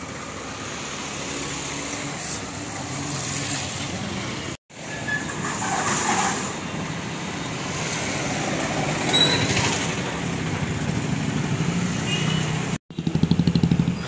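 Night street traffic: cars and an autorickshaw passing, with steady engine hum and tyre noise. The sound cuts out completely twice. A nearby engine pulses loudly near the end.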